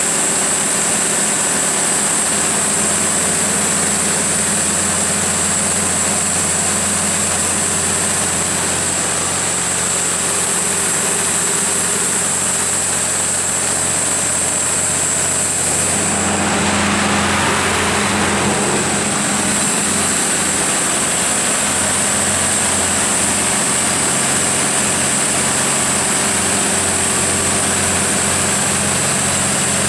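Cummins KTA19-G4 turbocharged inline-six diesel of a 500 kW generator set running at a steady speed, with a steady high-pitched whine above the engine note. A broad rushing noise swells for a few seconds past the middle, then settles back.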